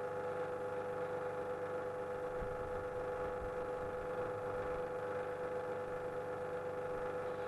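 Pump pressurising a water-filled test chamber, running steadily with a constant hum as the pressure climbs toward 12 bar.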